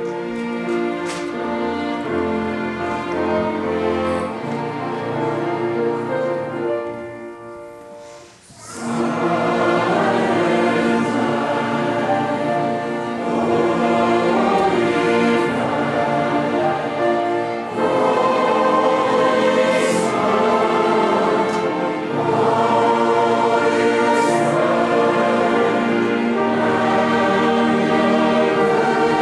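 A choir singing sustained, held chords. The music dips to a brief lull about eight seconds in, then comes back louder and stays full.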